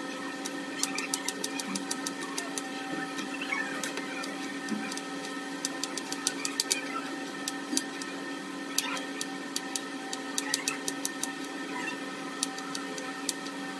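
Knife chopping potato into cubes on a plastic cutting board: irregular sharp taps, sometimes a few in quick succession, over a steady background hum.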